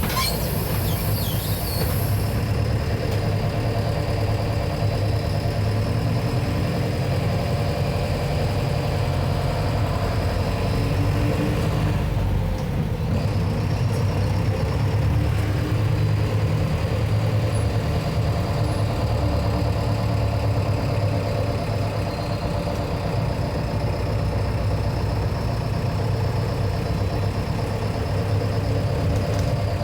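Mercedes-Benz OF-1721 Bluetec 6 bus's four-cylinder diesel engine running steadily, with a steady high whine over it. A hiss of air fades out in the first couple of seconds.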